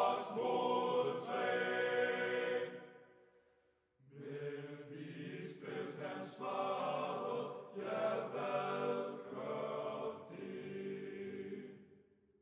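A choir singing slow, held phrases. The singing fades away about three seconds in, pauses briefly, then starts again and fades out near the end.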